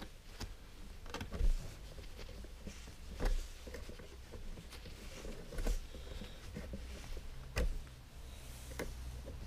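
Pliers working binding wire around an umbrella rib to hold a bicycle-spoke splint: scattered small metal clicks and light knocks, a second or two apart.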